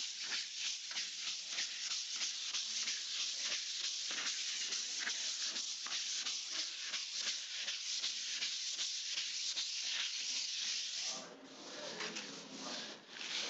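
Hand sanding of cured wall putty with a sheet of CUMI dry sandpaper: fast back-and-forth scratchy rubbing strokes on the wall, smoothing the putty coats before primer. The sanding stops about eleven seconds in.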